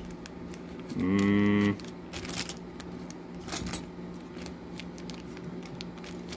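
A clear plastic bag of small metal pinball parts being handled: plastic crinkling and light clinks of the parts. About a second in there is a short, low, steady hum lasting under a second.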